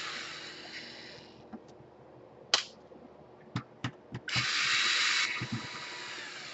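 Electric screwdriver running as it backs out laptop case screws, tailing off in the first second or so. A few light clicks follow, then a second burst of the screwdriver starts about four seconds in and eases off near the end.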